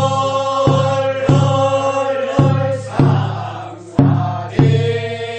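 Korean rice-paddy weeding song from Jincheon (the second weeding) sung by a group of voices in long, held, chant-like notes, with a steady struck beat about every 0.6 seconds.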